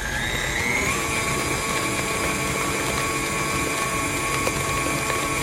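KitchenAid Classic stand mixer running, its wire whisk beating thick chocolate frosting in the steel bowl. The motor's whine rises in pitch over about the first second, then runs steady.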